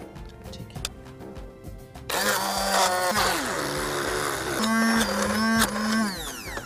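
An electric stick blender switches on about two seconds in and runs in a bowl of mango pulp, its motor pitch wavering as it churns the fruit, then stops near the end. Soft background music plays underneath.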